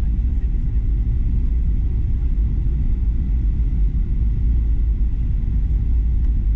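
Steady low rumble inside the cabin of a Boeing 737-400 taxiing after landing, its CFM56 engines running at idle while the airliner rolls along the taxiway.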